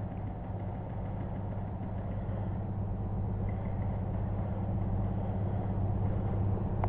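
Steady low drone of a running engine, growing slowly a little louder.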